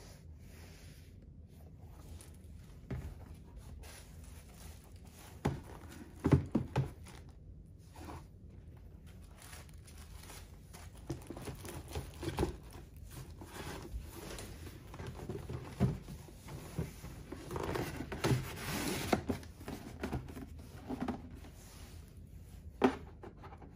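Cardboard shoebox and its wrapping paper being handled: scattered knocks and clicks with stretches of paper rustling as sneakers are pushed into the box and the lid is closed, with one sharp click near the end.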